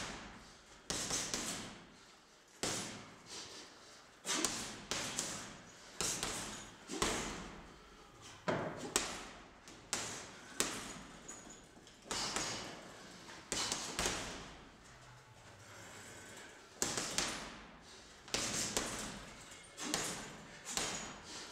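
Punches landing on a heavy punching bag: irregular thuds about once a second, each trailing off in the echo of a large gym hall.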